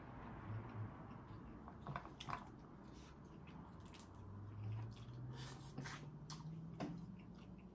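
Quiet, wet peeling and eating sounds: a boiled shrimp's shell pulled apart by hand, with soft squishes, small clicks and lip smacks from eating off buttery fingers. A faint low hum rises slowly in pitch through the second half.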